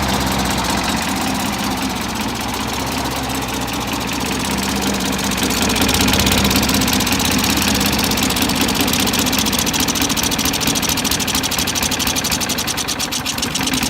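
Lawn mower engine fed through a GEET reactor instead of a carburetor, running steadily on a fuel mix the owner thinks is mostly water with a little gasoline and oil. The engine gets a little louder about six seconds in. The owner says it doesn't run perfectly.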